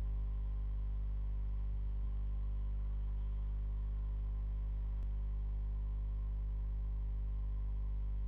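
Steady low electrical hum with a stack of even overtones, unchanging throughout, with one faint mouse click about five seconds in.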